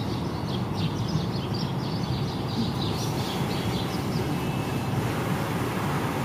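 Double-deck TER passenger train rolling past, a steady rumble of wheels on the rails.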